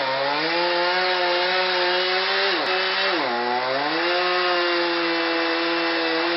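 Two-stroke chainsaw running at high revs while cutting wood, its pitch sagging as the chain bogs in the cut about a second in and again near the middle, then recovering.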